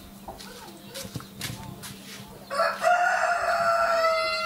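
A rooster crowing once: one long call that starts about halfway through, holds steady and drops in pitch at its end. A few faint clicks come before it.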